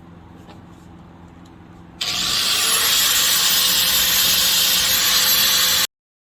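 Power cutting tool for the exhaust stack pipe switching on about two seconds in, its whine rising as it spins up, then running steadily with a loud hiss. It stops abruptly near the end. Before it starts there is only a low, steady hum.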